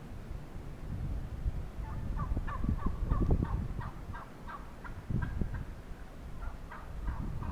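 Wild turkey gobbling: a fast rattling run of notes about two seconds in, then shorter gobbles later, over wind rumbling on the microphone.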